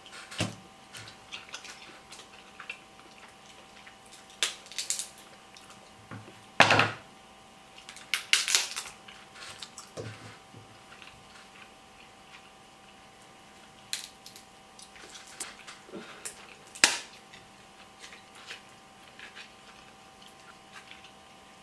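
Eating crab: king crab leg shells cracking and being snipped with kitchen scissors, with chewing, heard as scattered sharp cracks and clicks, the loudest about 7, 9 and 17 seconds in. A faint steady hum runs underneath.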